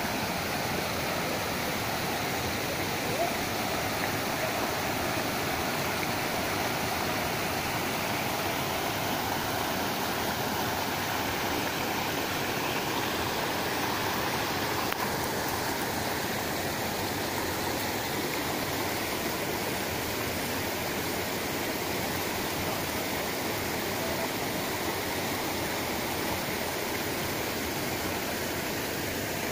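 Shallow river rapids: water rushing steadily over rocks.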